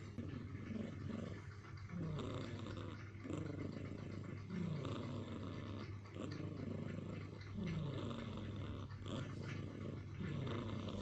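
A black cat snoring in deep sleep: rhythmic, pitched breaths that fall in pitch, repeating about every second and a half.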